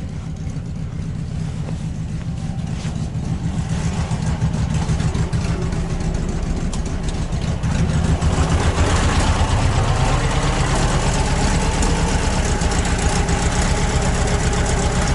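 ZAZ-968 Zaporozhets' rear-mounted air-cooled V4 idling steadily, running on old petrol topped up with fresh 92. It grows louder and brighter about halfway through.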